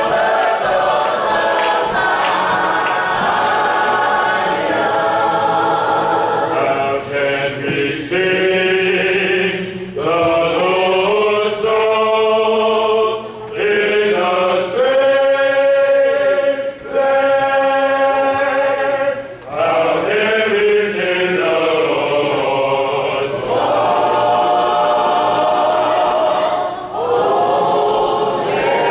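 Church choir singing in full chords, with long held notes and short breaks between phrases, led by a chorister directing by hand.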